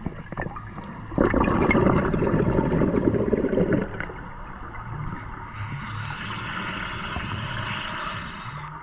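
Scuba breathing on a regulator, heard underwater: a loud rush of exhaled bubbles starting about a second in and lasting nearly three seconds, then a higher, steadier hiss of the next breath in that cuts off near the end.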